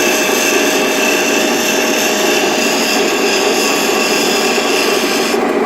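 Bench grinder running with a round skew chisel held against its 60-grit wheel, a steady grinding hiss over the motor's hum as the bevel is ground. The grinding hiss stops near the end as the tool comes off the wheel, leaving the grinder's motor running.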